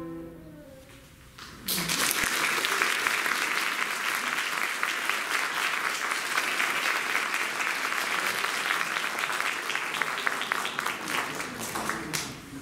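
The last chord of a violin, cello and piano trio fades away, then about two seconds in an audience breaks into applause, which dies down near the end.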